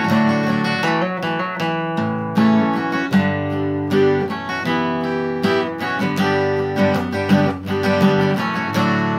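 Acoustic guitar music, strummed chords with picked notes, in an instrumental passage with no singing.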